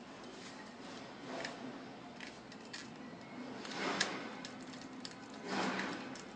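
Wires being connected to a touch wall switch's terminals: a few light clicks, then two longer scraping handling sounds about four and five and a half seconds in.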